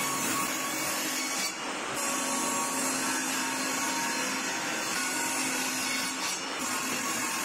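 Table saw running and ripping a thin pine strip along the fence, a steady motor-and-blade noise with two brief dips, about one and a half seconds in and again near the end.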